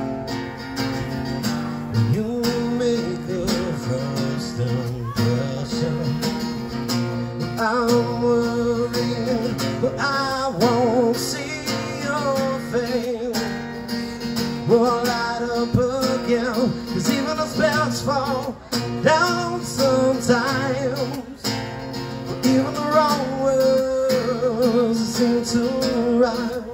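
Live acoustic guitar strummed and picked through a song, with a man's singing voice holding long wavering notes over it through the middle stretch.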